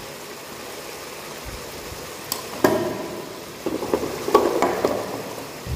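Spices being added to a simmering masala in a wok: a steady hiss from the pan, with a few sharp clicks about halfway and a cluster of light knocks and clinks of kitchen utensils shortly after.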